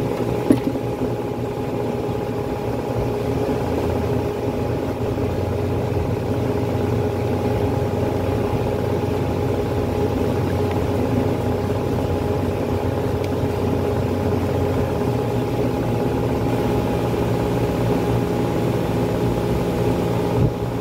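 Steady mechanical hum of a running machine or engine, even in pitch throughout, with one sharp click about half a second in.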